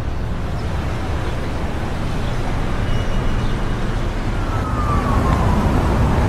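Town street traffic noise with a steady low rumble, and a siren wail falling in pitch over the last couple of seconds.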